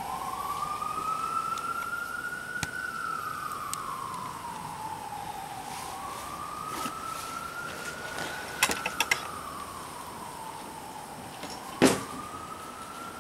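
A siren wailing, its pitch rising and falling slowly about every six seconds. A few sharp knocks come about two-thirds of the way in, and a louder one near the end.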